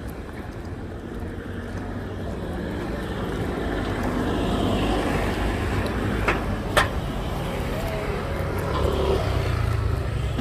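A motor vehicle's engine running, a low hum that grows louder over the first few seconds and then holds steady. Two sharp clicks a little past halfway.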